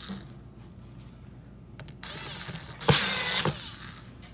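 Power drill briefly whirring as it drives a screw into a chair frame, starting about two seconds in and lasting about a second and a half, with a sharp click partway through.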